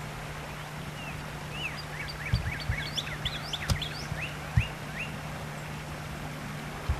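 A songbird chirping: a quick run of short sweeping chirps, densest in the middle and tailing off about five seconds in. A few dull low thumps break in, the loudest of them near the middle, over a steady low hum.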